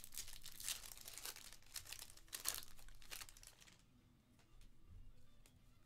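Plastic wrapper of a Panini Contenders football card pack crinkling and tearing as it is ripped open by hand, with sharp crackles, for about the first four seconds, then only faint handling.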